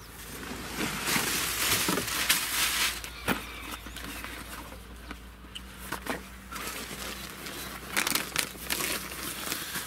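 Rustling of hands working damp groundbait of millet and sunflower cake in a fabric bucket, along with the rustle of a canvas shoulder bag being handled. The loudest rustling comes about a second in and lasts a couple of seconds, with scattered sharp clicks later.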